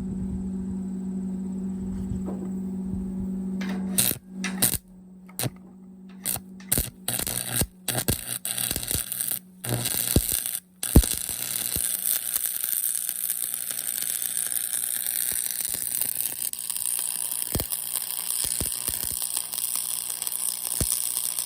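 Electric arc welder humming. A few seconds in, the sound is chopped by abrupt cuts, then settles into the steady crackling hiss of the arc as a steel plate is welded on, with the welder's hum underneath.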